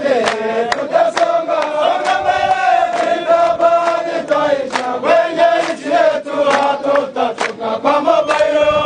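A group of soldiers chanting a song in unison, holding a mostly steady melody, with frequent rhythmic handclaps.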